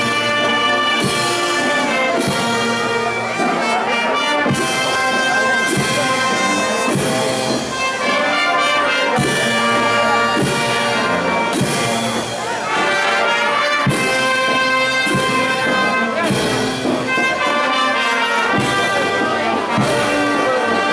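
Brass band playing a melody in full, sustained horn tones. A percussive hit marks the beat a little over once a second.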